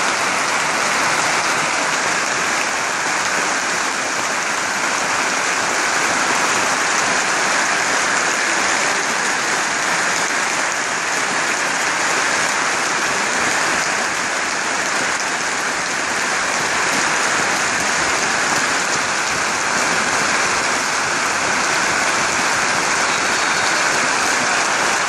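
A large football stadium crowd applauding steadily, a dense, even wash of clapping with no break.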